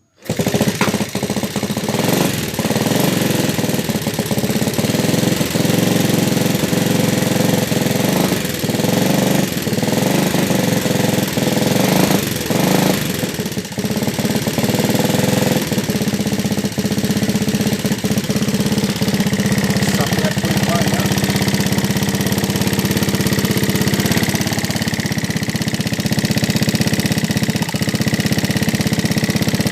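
Yamaha Vega ZR's single-cylinder four-stroke engine running steadily with a loud mechanical clatter, the rattly "sewing machine" noise of a badly worn engine that sounds wrecked.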